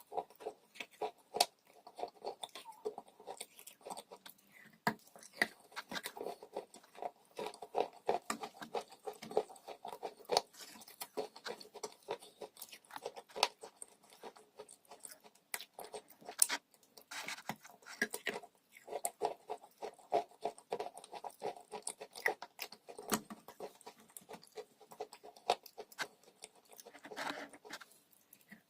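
A person chewing crunchy dry chalk: dense, irregular crunching and cracking, with a few short lulls between bites.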